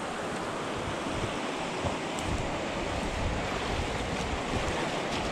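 Steady rushing of a fast, clear mountain river running over rocks, with wind buffeting the microphone in low, uneven gusts.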